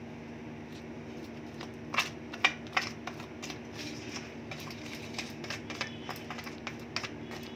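Metal spoon tapping and scraping over a naan and its plate while spreading butter: a string of light clicks and scrapes starting about one and a half seconds in, sharpest in the following second, over a steady low hum.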